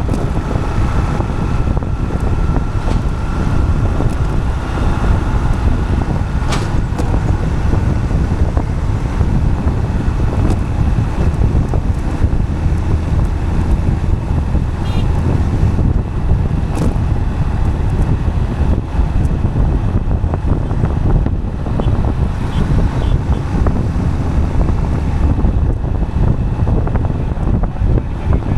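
Steady wind buffeting the microphone over a dense low road rumble from a vehicle in motion, with a few faint ticks and a faint thin tone that rises slightly over the first few seconds.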